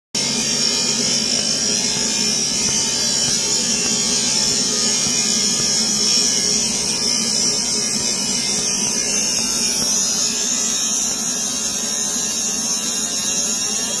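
Laser engraving machine running while it burns a design into rawhide leather: a steady hiss of its fans and moving air, with a faint whine that rises and falls in pitch over the last few seconds.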